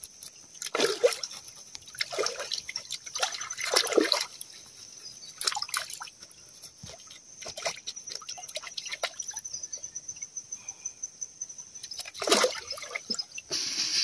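Shallow river water splashing and trickling as a fish is cleaned with a knife and rinsed by hand, in a few separate splashes with small clicks between them; the loudest splashes come about four seconds in and near the end.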